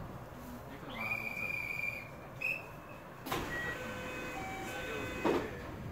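Electronic signal tones heard inside a Japanese commuter train standing at a platform: a steady beep about a second in, then a short beep, then a string of short notes at changing pitches, like a station departure melody or door chime. Two knocks fall partway through.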